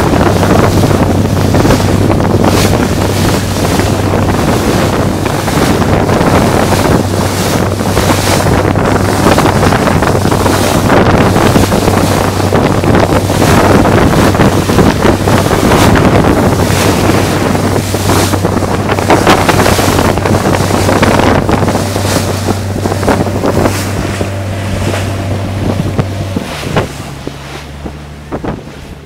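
A boat under way: its engine runs with a steady low hum beneath heavy wind buffeting on the microphone and water rushing past the hull. About 26 seconds in the engine note changes, and the sound fades down near the end.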